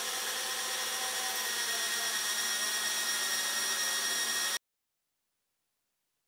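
Metal lathe running, a steady whir with a high whine, cutting off suddenly about four and a half seconds in.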